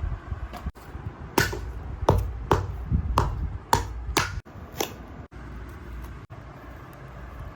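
A run of about seven sharp taps or knocks, roughly half a second apart, each with a short ringing tail, over a low steady hum; after the last one only the hum is left.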